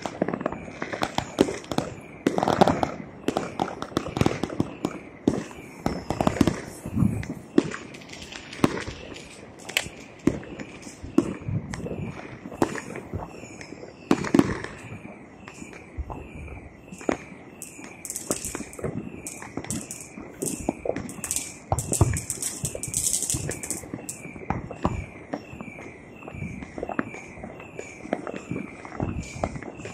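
New Year's fireworks and firecrackers going off across the city: a dense, irregular string of sharp bangs and crackles, some louder and nearer, many distant, with no let-up.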